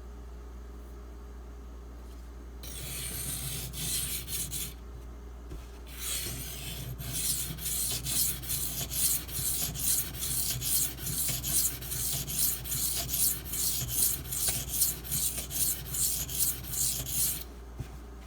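Knife blade of Super Gold (SG2) steel stroked back and forth on a wet, muddy 320-grit Shapton Pro whetstone: a rasping scrape, about two strokes a second. It starts about three seconds in, stops briefly, then runs on in rapid strokes until near the end. The steel is grinding very easily.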